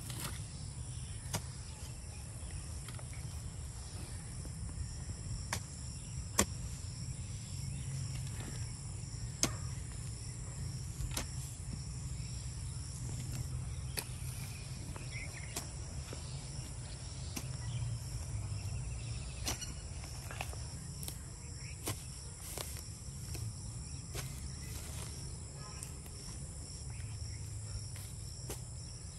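Hoe blade chopping into and scraping loose soil, sharp separate strikes every one to three seconds, over a steady high chorus of insects and a low background rumble.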